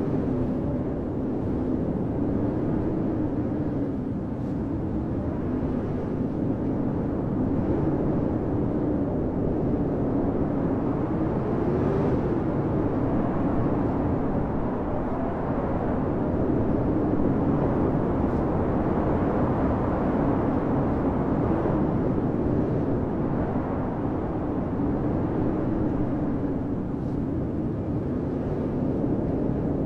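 Blizzard wind blowing steadily as a dense rushing noise, with a low moaning tone that slowly rises and falls.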